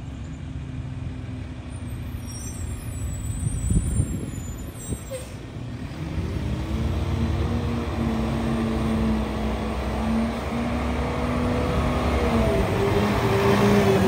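Mack LEU McNeilus rear-loader garbage truck driving up, its engine running with a steady hum that grows louder as the truck comes alongside. There is a brief thump about four seconds in.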